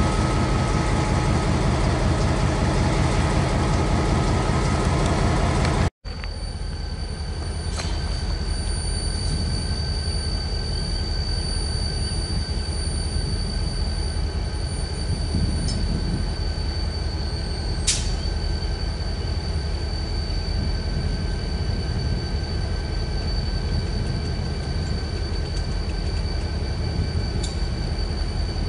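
Bessemer & Lake Erie diesel locomotives running close by with a heavy, even engine rumble. It cuts off abruptly about six seconds in and gives way to a fainter diesel locomotive rumble from a stopped train, with a steady high whine over it and a single sharp click partway through.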